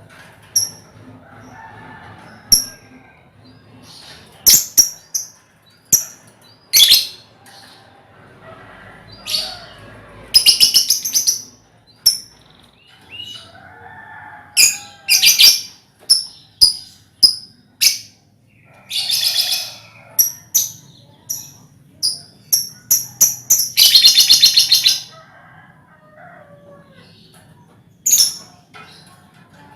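A colony of young lovebirds calling: sharp, high, shrill chirps at irregular moments, broken by a few longer bursts of rapid chattering, the longest of them past the three-quarter mark.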